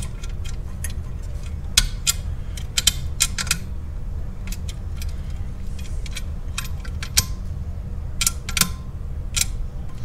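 Scattered small metallic clicks and clinks from handling a Ford Crown Victoria brake pedal box while the brake light switch is threaded into its bracket by hand. There is a steady low hum underneath.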